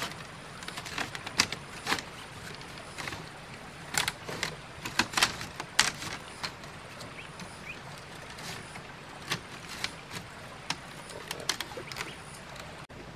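Long strips of split green bamboo being woven through upright bamboo stakes: irregular clacks, scrapes and crackles as the strips are pushed and bent into place, busiest in the first half, over a steady faint hiss.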